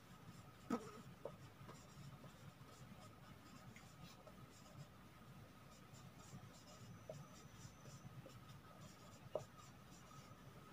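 Marker pen writing on a whiteboard: faint scratchy strokes, with two sharper ticks, one about a second in and one near the end, over a faint steady high whine.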